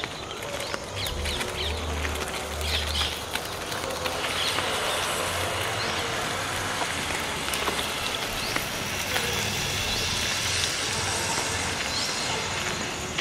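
Outdoor street ambience: steady traffic noise with a low rumble about a second in, and short bird chirps now and then.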